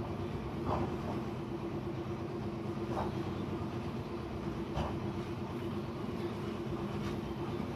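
Steady machine drone with a constant low hum, and four light taps about two seconds apart.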